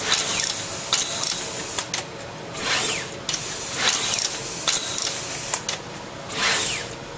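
Pick-and-place machine at work: its stepper motors whine in rising and falling sweeps as the placement head moves, with sharp clicks scattered throughout and two short hisses.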